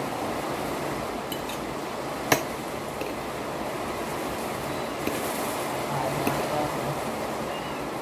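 A fork clinking sharply once against a plate about two seconds in, with a few fainter clinks of cutlery while spaghetti is eaten, over a steady background hiss.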